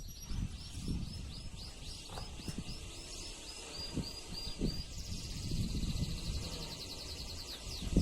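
Male domestic canary singing: a run of repeated swooping high notes, about three a second, then a fast high trill about five seconds in. Irregular low thumps and rumble sit underneath.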